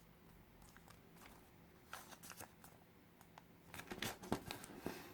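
Sheet of coloured origami paper being folded and creased by hand: faint crinkling and rustling, a few short rustles about two seconds in, then a busier run of paper noises from about four seconds in.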